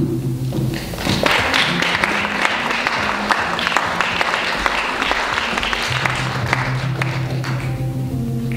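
Audience applauding, starting about a second in and dying away near the end, over sustained low music tones.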